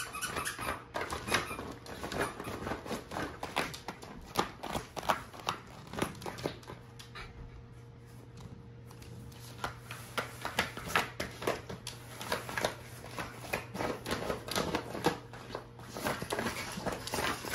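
A West Highland white terrier chewing and tugging at crinkly plastic packaging: rapid crinkling and rustling, sparser for a few seconds in the middle before picking up again.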